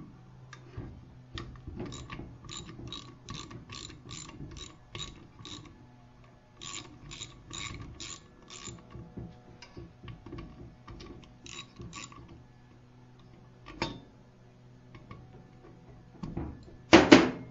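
Ratchet wrench clicking in short runs of about three clicks a second as bolts are backed out of a small engine's brake assembly, ending in a louder metallic clatter.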